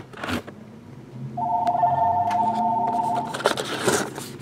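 A telephone ringing once: a steady two-tone electronic ring lasting about two seconds, starting about a second and a half in. Cardboard card boxes are handled around it, most loudly just after the ring stops.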